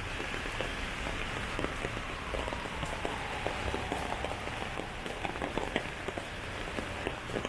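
Heavy rain falling on an umbrella and wet pavement, with many separate drop ticks close to the microphone over a steady hiss of downpour.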